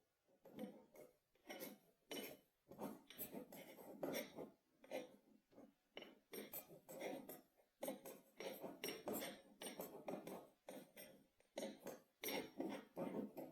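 Kinetic sand being squished and dropped: a string of soft, grainy crunches, one to three a second, in clusters with short pauses between them.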